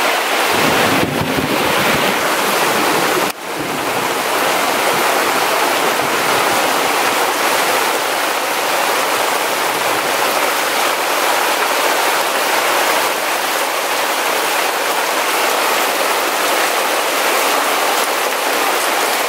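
Heavy tropical downpour: a steady, dense rush of rain falling on the forest floor and on a tarp overhead. It dips briefly about three seconds in.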